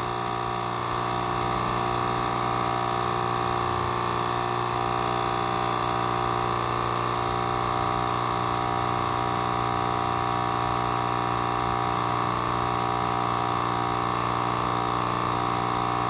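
Turmix Nespresso capsule machine's pump running continuously as descaling solution is pushed through the machine while its button is held down; a steady, even buzzing hum.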